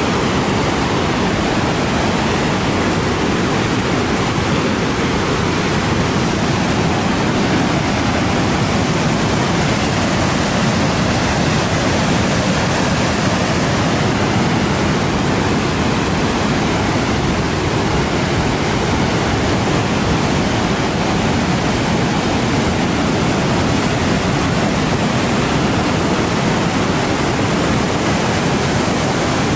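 Huron River in spring flood, swollen by snowmelt and rain, rushing over rapids as a loud, steady wash of white water.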